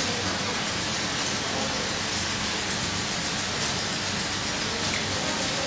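Steady, even rushing hiss of factory background noise, with no distinct knocks or machine rhythm standing out.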